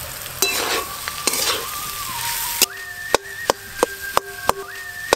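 Boiled potatoes sizzling in hot mustard oil as a metal spatula stirs them through fried onions in a kadai. About halfway through, the stirring gives way to sharp clicks about three a second as the spatula chops down through the potatoes against the pan, with a ringing tone under them.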